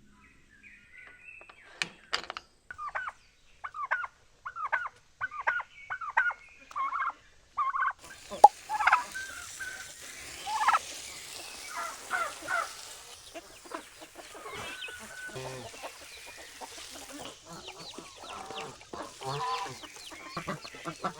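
Flock of domestic poultry calling: a run of short calls about two a second, then from about eight seconds in many birds calling at once over a steady hiss.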